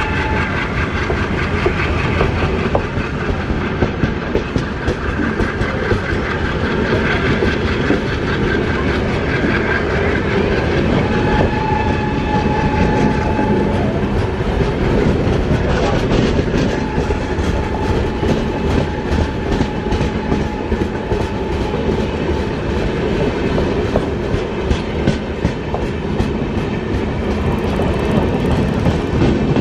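Indian Railways passenger coaches rolling past close by as the diesel-hauled train accelerates hard: a steady rumble with the wheels clicking over rail joints, the clicks coming faster in the second half.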